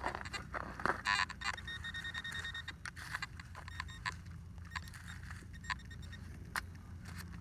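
Metal detector signal while a target is being dug: a quick run of electronic beeps about a second in, then a steady high beep tone for about a second, with scattered clicks and scrapes of digging.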